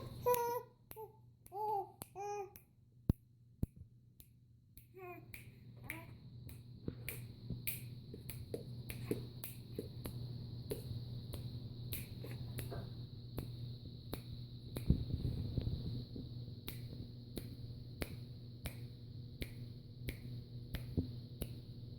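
A five-month-old baby's short babbling sounds for the first couple of seconds, then a long run of irregular sharp clicks over a steady low hum.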